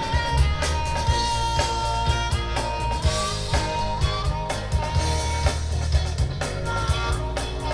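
Live rock band playing an instrumental break: electric guitar, bass and drums, with a lead line of long held notes that bend up in pitch.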